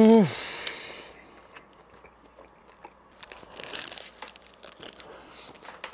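A man's short, loud wordless exclamation of delight right at the start, then eating a pistachio donut: biting and chewing, with the paper wrapper crinkling. A second bite comes about four seconds in.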